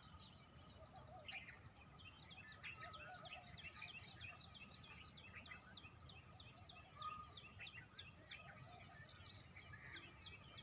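A chorus of birds chirping: many short, quick chirps overlapping without a break, over a low background rumble.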